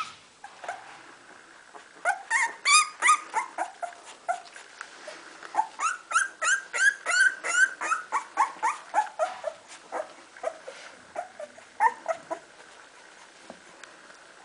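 Young puppy whining and squealing: a run of short, high calls that mostly fall in pitch, about two a second, starting about two seconds in and tailing off near the end.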